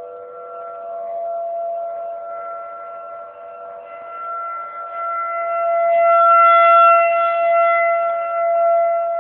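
Outdoor tornado warning siren sounding its scheduled monthly test: a loud, steady chord of several held tones, its volume swelling to a peak about six to seven seconds in and then easing off slightly.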